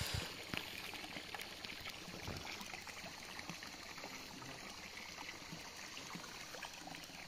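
Faint splashing and lapping of pond water at a muddy bank, stirred by a hooked fish thrashing in the shallows, with a few small splashes.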